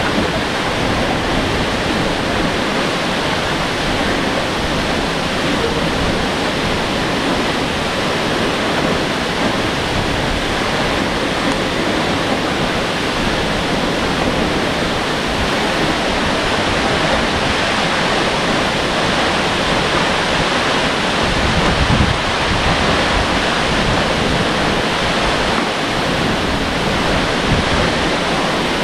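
Aw-asen Falls, a waterfall about 120 metres high, pouring down: a loud, steady rush of falling water with no let-up.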